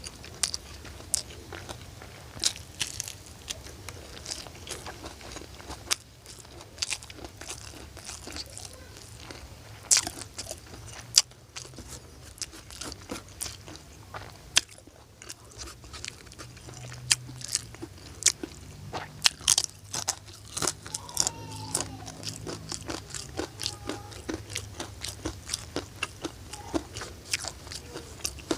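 A person biting and chewing crunchy food close to the microphone: irregular sharp crunches, several a second at times, throughout.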